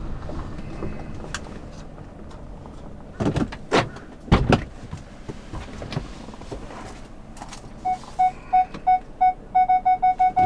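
A few sharp knocks, then from about eight seconds in a car's parking sensor beeping. The short beeps come quicker near the end, the sign of the car reversing closer to an obstacle.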